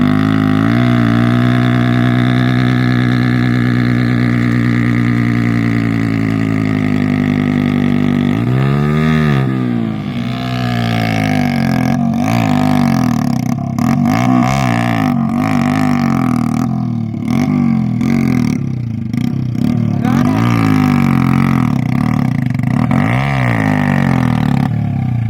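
Hero Splendor motorcycle's single-cylinder four-stroke engine running under load, its pitch sagging slowly, then revved up and down over and over, about every one to two seconds, through the second half. It is a load test of a newly fitted Apache clutch plate.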